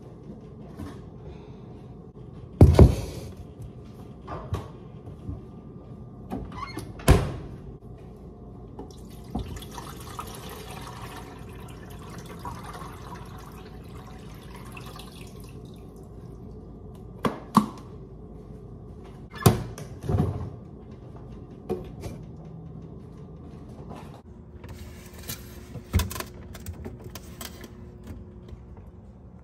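A plastic water-filter dispenser handled on a stone countertop: several sharp knocks and clunks of the plastic being set down and moved, with water running into it for about six seconds in the middle.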